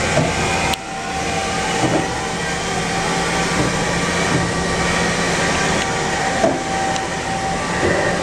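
Steady running noise of machine-shop machinery: a dense mechanical hum with a few held tones, with a sudden brief dip about a second in and a few light clicks.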